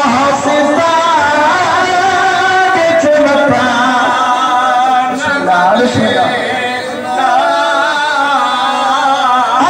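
A man's voice reciting a noha, the Shia lament sung at Muharram mourning, in long wavering sung phrases.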